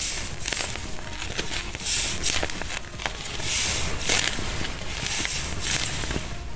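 A taped paper squishy crinkling and crackling as hands squeeze and press it, in repeated swells every second or two.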